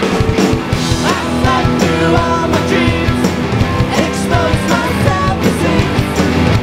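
Rock band playing live, with guitars and drums under a singer's voice.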